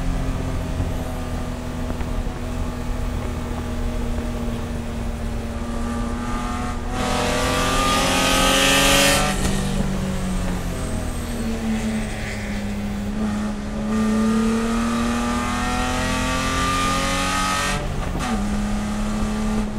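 BMW E30 race car's inline-six running hard under racing load, its note climbing and easing through the corners with sudden gear changes about nine and eighteen seconds in. A loud rushing noise swells from about seven seconds in until the first gear change.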